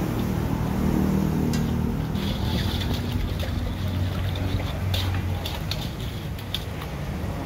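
Steady low mechanical hum with a constant pitch, with scattered light clicks and knocks over it.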